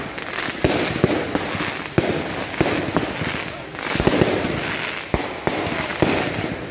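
Aerial fireworks bursting overhead: irregular sharp bangs, about one or two a second, with crackling in between.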